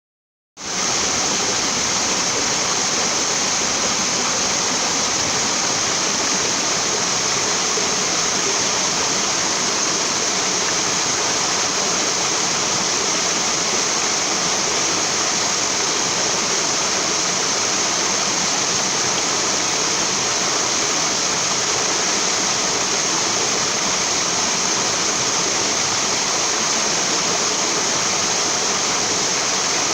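Small waterfall from a farm dam's spillway: water pouring and splashing in a steady, loud rush that fades in within the first half second.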